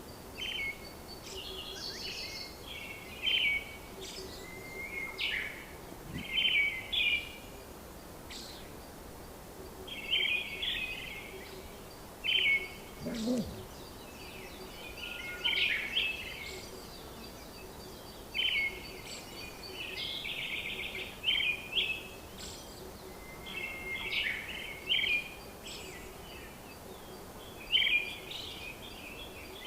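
Birds chirping and singing: short bright calls recurring every second or two, over a steady background hiss and a faint low hum.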